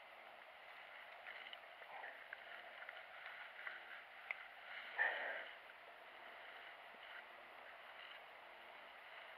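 Faint water and handling noises with small clicks as a bluegill caught on a fly rod is landed from the pond, with one brief louder scuffle about five seconds in.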